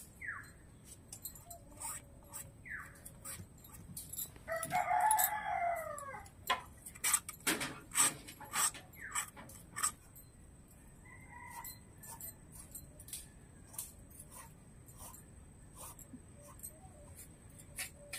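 A rooster crows once, a long call about four and a half seconds in, with a few short chirps around it. Sharp clicks and knocks follow, loudest between about six and ten seconds in, as snail shells are cracked open with a small blade.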